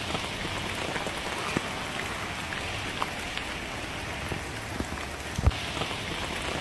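A steady rush of water, with scattered light ticks and one low thump about five and a half seconds in.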